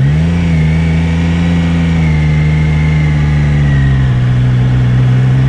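Triumph Daytona 660's three-cylinder engine pulling under throttle on the move. Its note climbs sharply at the start, holds steady, eases a little about two-thirds of the way through, then rises again near the end.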